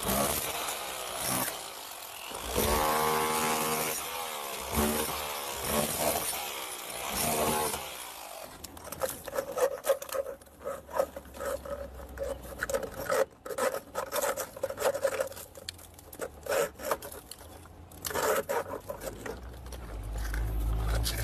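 Hammer drill with a tube bit cutting a channel through hollow clay brick, its motor speeding up and slowing in spurts. From about eight seconds in come rapid clicking and scraping as corrugated plastic conduit is pushed into the channel. A low rumble builds near the end.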